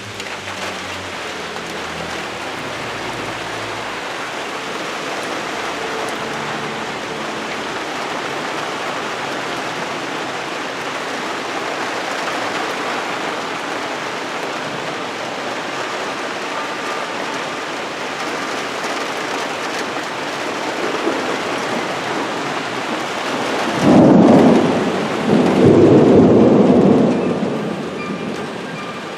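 Heavy rain falling steadily in a thunderstorm, with a loud thunderclap about 24 seconds in that rumbles on for roughly three seconds.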